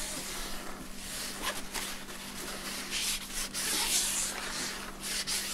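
A rag rubbing along a bicycle wheel's aluminium rim, wiping grease and oil off the braking surface with white spirit. The scratchy hiss swells and fades with each wipe.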